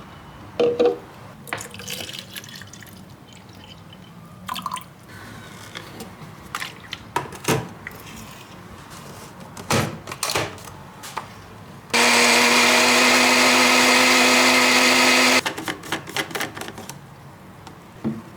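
Light clatter of kitchen things being handled, short knocks and clicks, followed by a loud, steady rush with a hum running for about three and a half seconds and stopping abruptly.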